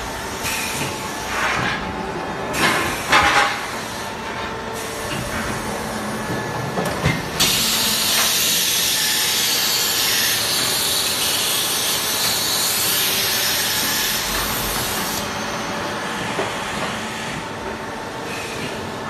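Tile stacking machine's air system hissing. A few short hisses come in the first few seconds, then a steady strong hiss lasts about seven seconds from a third of the way in, then eases off.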